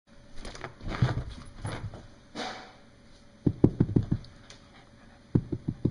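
A corgi scrambling on carpet: scuffling at first, then two quick runs of short thumps, about five each, in the middle and near the end.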